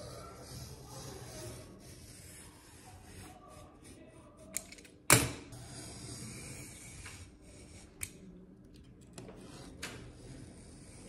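Paper being cut with a utility knife on a cutting mat: soft scraping and rustling, with a few sharp clicks, the loudest about five seconds in.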